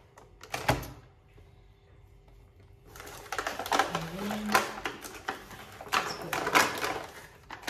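Plastic grocery packaging crinkling and rustling inside a fabric shopping bag as someone rummages through it. A couple of light knocks come near the start, then a dense run of crackles from about three seconds in until near the end.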